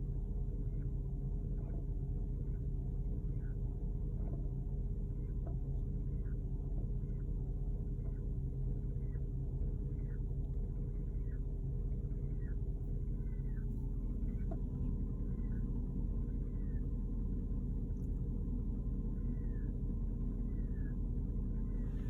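2010 Porsche Cayenne GTS V8 running steadily, with a strange chirping noise: short chirps that fall in pitch, repeating a little more than once a second in runs with brief pauses.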